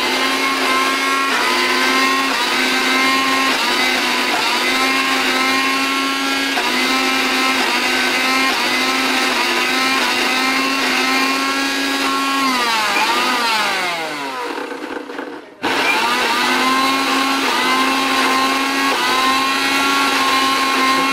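Electric mixer grinder motor running at full speed, grinding dried red chillies with a little water into a paste in its small steel jar. About twelve seconds in it is switched off and its whine falls away, then it starts again a few seconds later and runs on.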